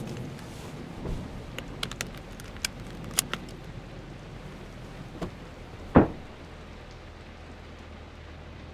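Inside a parked car at night, a steady low rumbling noise runs under scattered light clicks and taps. About six seconds in comes one sharp, loud thump.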